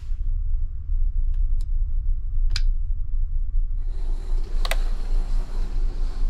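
Steady low drone of the ferry's engines, with a few sharp clicks of a bunk's wall-lamp switch being pressed, the loudest about two and a half seconds in. About four seconds in, a high hiss comes in, with another short cluster of clicks.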